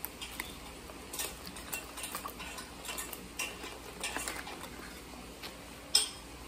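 Plastic water bottle being handled and shaken to mix in electrolyte powder: a run of light plastic clicks and rattles, then one sharp click about six seconds in as the cap is twisted.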